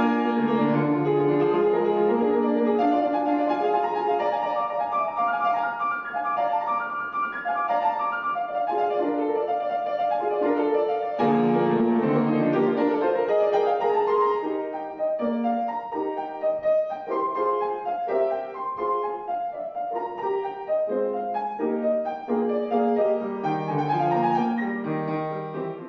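Grand piano being played, a continuous stream of notes and chords in both hands.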